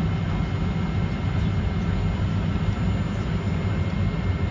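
Cabin noise inside a Boeing 737-400 taxiing: its CFM56 jet engines running at low power, a steady low rumble with a faint steady high tone over it.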